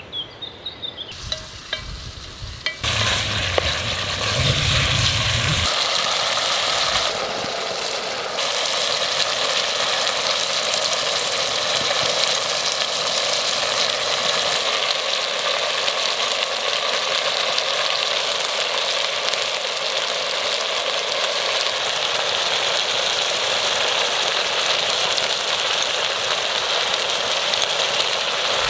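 Chunks of meat frying in a cast-iron pot over a wood fire, a steady sizzle that sets in about three seconds in and runs on evenly.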